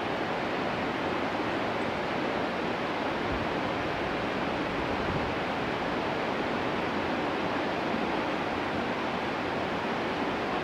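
Steady, even rush of a fast, rocky mountain river, with no break or change in level.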